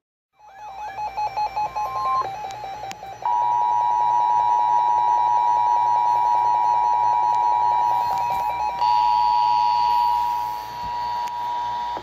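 NOAA weather radios sounding an emergency alert. Rapid electronic beeping starts about half a second in, then a loud, steady alarm tone holds from about three seconds in, and a second alarm tone joins near nine seconds.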